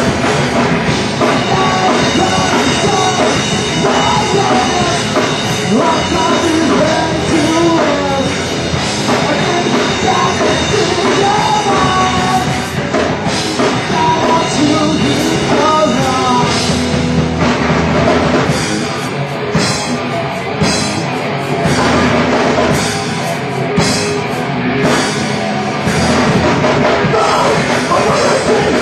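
Ska-punk band playing live and loud: electric guitars and drum kit, with vocals.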